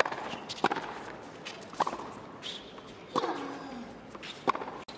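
Tennis ball struck back and forth by racquets in a baseline rally on a hard court: five sharp pops, roughly one every second and a quarter. A player's short grunt, falling in pitch, comes with the strike about three seconds in.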